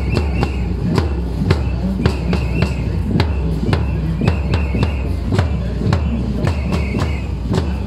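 Bass drum beaten with a mallet in a steady marching beat, about two strikes a second, over the murmur of a walking crowd.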